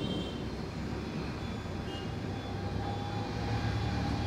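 Steady low rumbling hum of background machinery or traffic noise.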